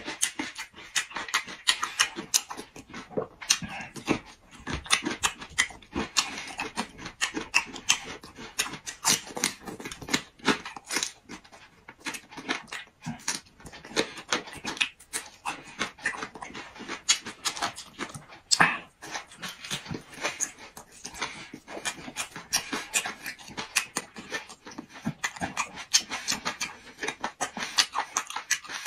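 Close-up wet chewing and lip smacking while eating boiled beef large intestine with raw garlic cloves: a fast, irregular run of moist clicks and smacks, several a second.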